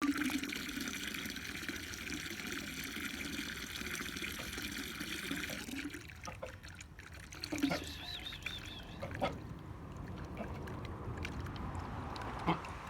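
Water trickling or running steadily, cutting off suddenly about six seconds in; after it come a few light knocks and a brief high warble.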